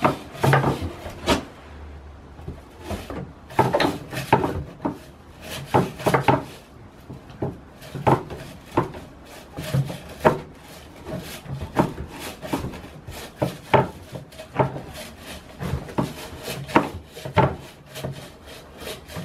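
A goat gnawing and scraping with its mouth at a fixture on a wooden stall wall: irregular rasping scrapes and knocks against wood, about one to two a second.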